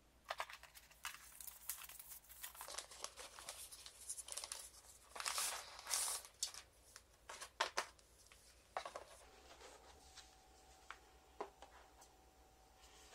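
Paper packaging rustling and crinkling in irregular bursts, with sharp clicks among them, as a laptop in a protective paper sleeve is handled and lifted out of its box. The rustling dies away after about nine seconds, leaving a couple of light taps.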